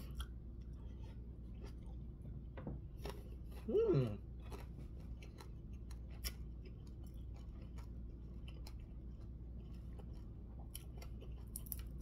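A person eating by hand: soft chewing with small clicks and mouth sounds. About four seconds in comes a short hum from the throat that falls steeply in pitch, like an appreciative "mmm".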